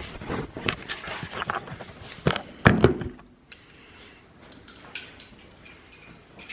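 Clicks and clinks from a socket set, with sockets and extensions being handled and fitted together, and a louder knock about two and a half seconds in. After that come fewer, fainter clicks.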